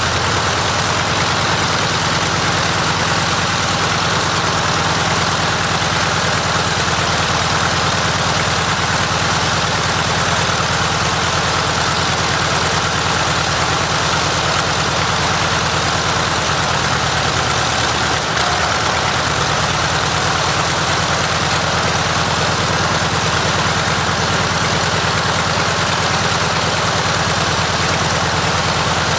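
Zero fighter's Nakajima Sakae 14-cylinder radial engine running steadily on a ground run, the propeller turning, at an even, unchanging speed.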